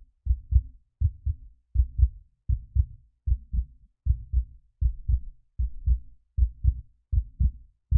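Heartbeat sound effect: low, evenly paired thumps (lub-dub), repeating at about eighty a minute.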